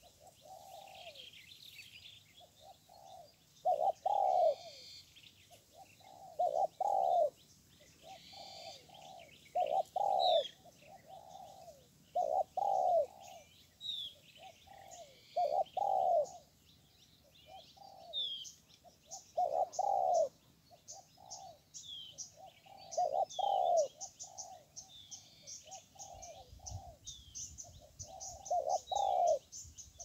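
A dove cooing over and over, a strong coo about every three seconds with softer notes in between, while small birds chirp thinly above it. From about halfway a fast, high ticking joins in.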